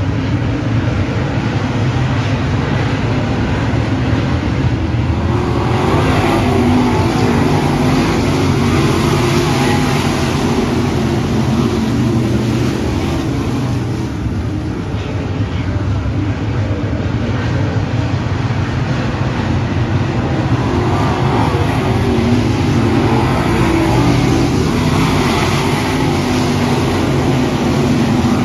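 A field of dirt late model race cars running laps around a dirt oval, the engines a continuous din that swells twice as the pack comes by.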